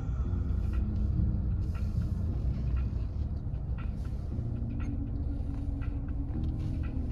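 Low, steady car-cabin rumble of engine and tyres from a car being driven slowly.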